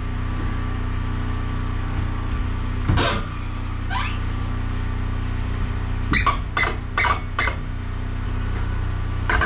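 Ash log being rolled over on a bandsaw mill bed with a cant hook: wooden knocks and thumps as the hook bites and the log turns, a sharp one about three seconds in and a quick clatter of four or five knocks from about six to seven and a half seconds, over a steady low machine hum.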